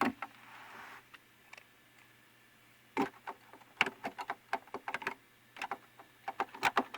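Hard plastic clicks and clacks from the Radio Shack 12-696's cassette deck as its eject key and door are worked. There is one click, then after a pause a rapid irregular run of them. The door stays shut because the deck mechanism is jammed in its engaged position.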